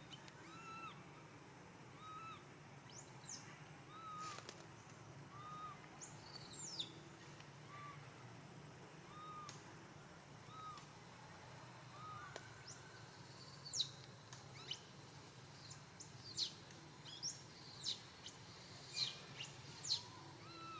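Animal calls: a short, mid-pitched call repeats about once a second, while high whistled calls that sweep downward in pitch come more often and louder in the second half.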